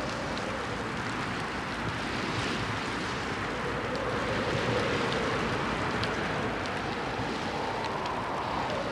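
Steady wind and choppy water noise. A faint tone wavers underneath and rises in pitch near the end.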